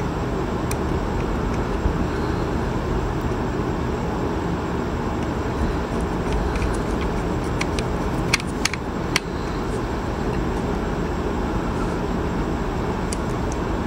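Steady background noise throughout, with a few sharp clicks about eight to nine seconds in as small plastic and metal parts of a hair straightener's swivel cord joint are handled and fitted together.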